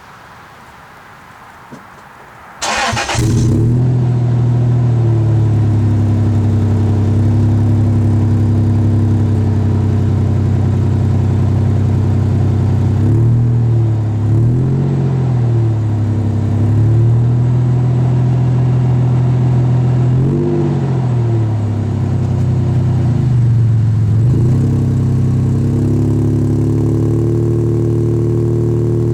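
2002 Toyota Tacoma 3.4-litre V6 with a Magnaflow-clone Xlerator muffler: the starter cranks briefly about three seconds in and the engine catches, then idles steadily through the exhaust. A few short throttle blips rise and fall partway through, and the idle sits a little higher near the end.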